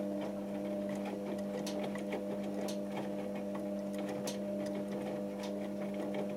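Hotpoint First Edition HVL211 washing machine tumbling a load during the heating stage of a 90 °C cotton wash: the drum motor hums steadily while the laundry falls inside the drum with irregular clicks and taps.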